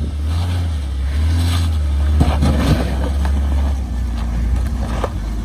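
Jeep Grand Cherokee WJ engine running under load as the SUV crawls up a steep rock at low speed, with a steady low rumble and a few sharp knocks, about two seconds in and again near the end.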